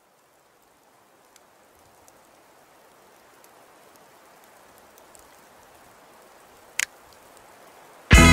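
A faint hiss with scattered small ticks swells slowly, broken by one short sharp click about seven seconds in. Near the end, loud rock music with guitars and drums starts abruptly.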